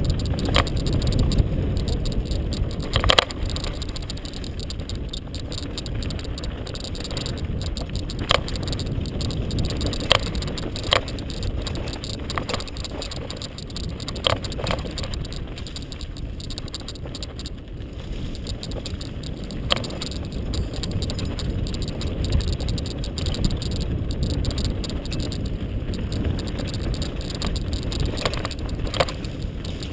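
Mountain bike clattering and rattling down a rough dirt singletrack, with sharp knocks at irregular moments over a steady low rumble of tyres and wind on the microphone.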